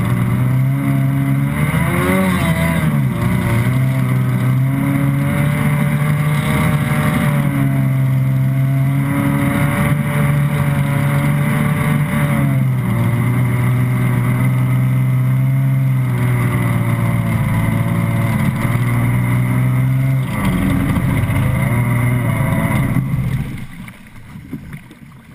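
Stand-up jet ski's engine running hard under way, with spray and water rushing past the hull; its pitch dips briefly a few times as the throttle eases and comes back. Near the end the engine note drops away as the craft slows.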